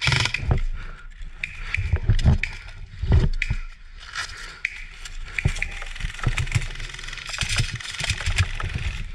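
Irregular knocks, clicks and scraping with rustling, the sound of the camera and gear being handled and moved about.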